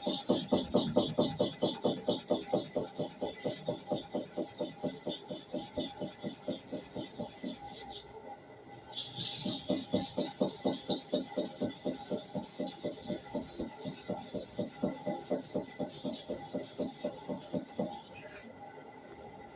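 Hair-clipper blade rubbed back and forth on a sharpening surface in rapid, even scraping strokes. The strokes break off for about a second near the middle, then resume.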